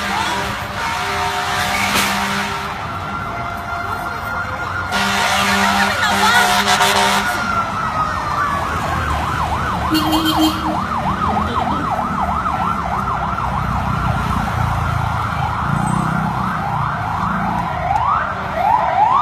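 Emergency vehicle siren: a steady high wail that turns, about eight seconds in, into a fast warbling yelp, speeding up near the end. Two bursts of rushing noise come in the first seven seconds.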